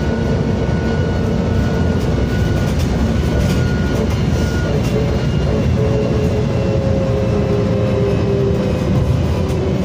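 VDL DB250 double-decker bus heard from a passenger seat inside, its engine and drivetrain running loud and thrashy as a dense, steady rumble. A steady whine runs over it, and a higher whine fades out about halfway.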